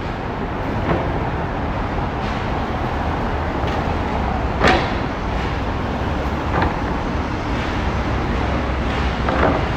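City street traffic: a steady rumble and hiss of passing vehicles, with a few short sharp clicks, the loudest about halfway through.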